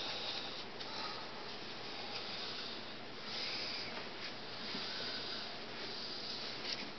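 Quiet room tone: a faint hiss that swells and fades every second or two.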